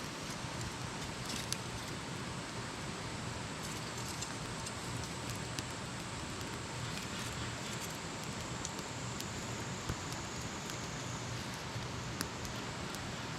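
Wood campfire burning with a steady hiss and occasional sharp crackles and pops.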